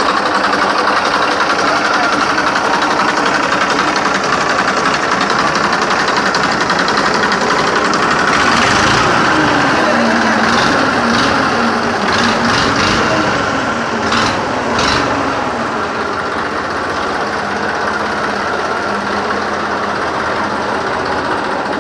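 TAFE 45 DI tractor's three-cylinder diesel engine idling steadily, with a few clicks about halfway through.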